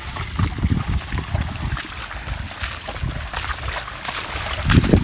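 Muddy water sloshing and splashing as a buffalo cart's rubber-tyred wheels churn through a flooded rice paddy, with irregular low thuds.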